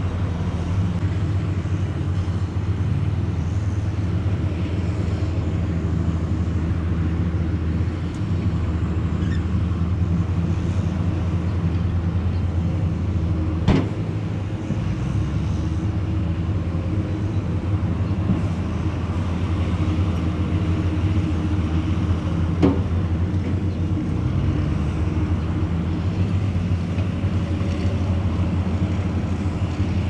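Heavy diesel engines of a Daewoo dump truck and a Komatsu crawler bulldozer running steadily while the truck tips soil from its raised bed. Two sharp knocks ring out, one near the middle and one about two-thirds of the way in.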